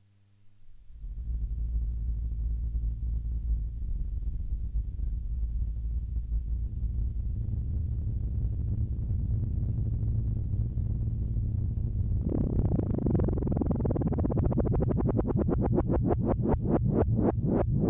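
Studio Electronics Boomstar 4075 analog synthesizer sounding a low sustained tone. About twelve seconds in it brightens and a fast rhythmic pulsing sets in, gradually slowing toward the end.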